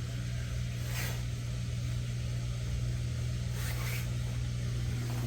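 Whirlpool dishwasher pump motor running with a steady low hum, with faint water flow noise.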